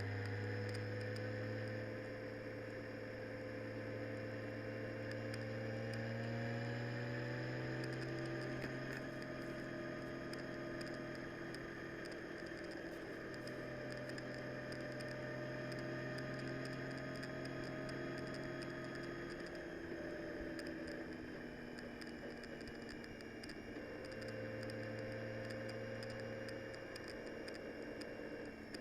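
A vehicle's engine running on the move, its pitch rising, holding, easing off and rising again as speed changes. Scattered small ticks, raindrops, run throughout.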